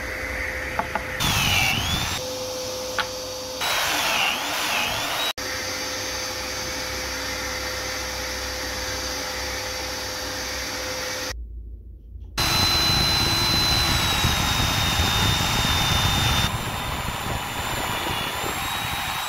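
Homemade drill press running with a bimetal hole saw cutting discs out of plywood, its pitch dipping twice as the teeth bite. After a short break, a bit bores down through a stack of plywood discs, a louder steady whine with a high tone.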